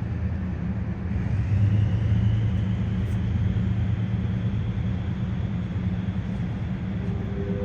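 A steady low engine rumble that swells about a second in, with a faint high whine that rises and then holds.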